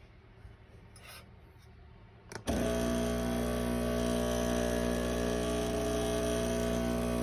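Brewsley espresso machine's pump switching on with a click about two and a half seconds in, then buzzing steadily on a single-cup brew cycle. The owner reports that the machine is not pushing any water through the grounds.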